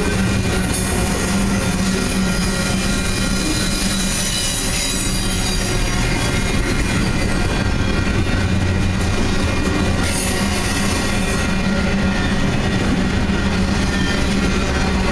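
Intermodal freight cars loaded with semi-trailers rolling steadily past, steel wheels on rail giving a continuous rumble with thin high squealing tones over it.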